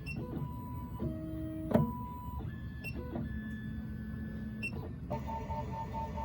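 Miracle A9 key cutting machine's stepper motors driving the probe through its automatic calibration measurement on the CP86 car adapter. The motors whine at a string of different pitches that change every second or so, with a few clicks, a sharp click about two seconds in, and a pulsing tone from about five seconds in.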